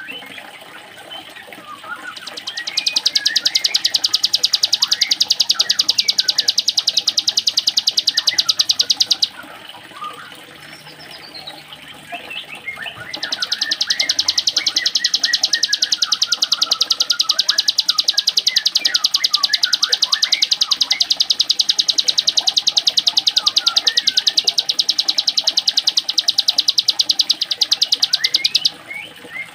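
Ciblek gunung, a prinia, singing its 'mesin jahit' (sewing-machine) song: a very fast, even, high-pitched rattle held for about seven seconds, a pause, then again for about fifteen seconds. Shorter, lower chirps from other birds run underneath and fill the pause.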